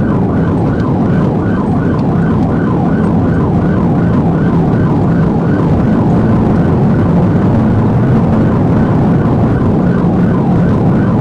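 Police cruiser siren running in a rapid, evenly repeating yelp, heard from inside the car over steady engine and road noise during a pursuit.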